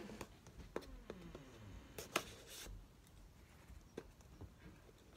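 Faint scrapes and clicks of a blade cutting and picking at the tape on a cardboard toy box, with fingers working at the flap. The most distinct scrapes come about two seconds in.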